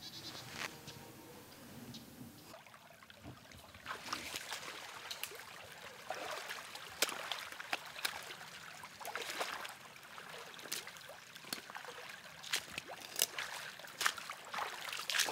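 A person wading through shallow floodwater, splashing and sloshing with each stride in an uneven walking rhythm that starts a couple of seconds in.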